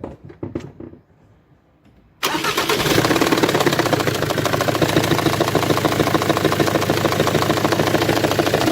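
Jaguar X-Type 2.0d's Ford four-cylinder diesel engine starts abruptly about two seconds in and runs with a loud, fast, even ticking rhythm. The noise comes from a badly damaged cylinder head that needs replacing. A few soft clicks come before it.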